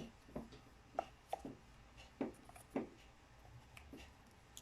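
Faint light clicks and taps, roughly two a second, of hands handling a refrigerator's power plug and cord as it is plugged in.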